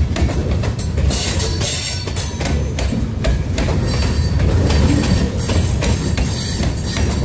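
Freight train of covered hopper cars rolling past at close range: a steady, loud rumble of steel wheels on rail, with scattered clicks and clanks from the cars and a thin wheel squeal.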